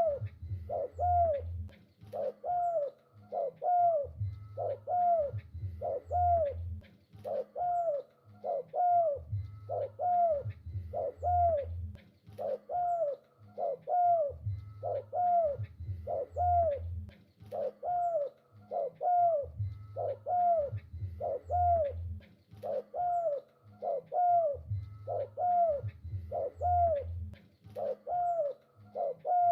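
Spotted dove (tekukur) cooing continuously: a steady run of short arched coo notes, about two a second, with deeper low coos recurring in phrases every few seconds.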